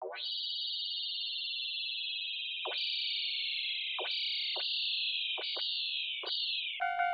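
A high, whistle-like synthesized tone sweeps up, then holds and slides slowly downward in several steps, each step broken by a quick swoop down in pitch. Near the end a railroad crossing bell starts ringing, about three dings a second.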